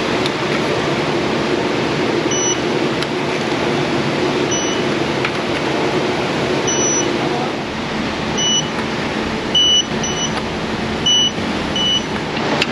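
Steady rushing background noise with about seven short, high-pitched electronic beeps at uneven intervals, the first about two seconds in.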